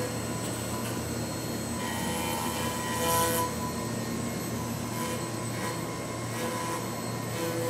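5-axis CNC machining center milling a laminated katsura wood block: a steady high whine from the spindle and cutter over running machine noise, with a louder stretch of cutting noise about three seconds in.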